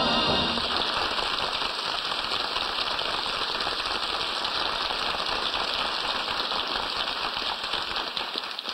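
Studio audience applauding after a song, a dense steady patter of clapping that fades away near the end, heard through an old broadcast recording.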